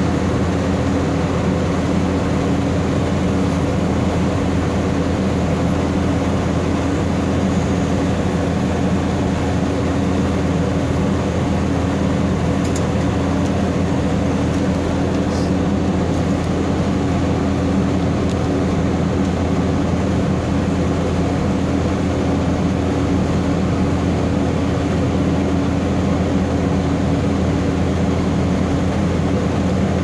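Vögele asphalt paver's diesel engine running steadily at close range: a constant low engine drone with a steady hum in it and no change in speed.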